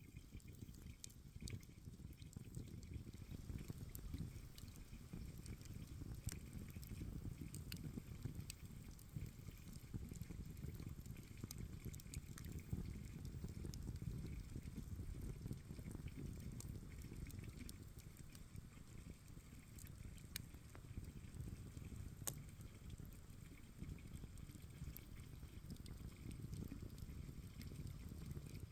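Campfire crackling: scattered sharp pops and snaps of burning wood over a low, steady rumble.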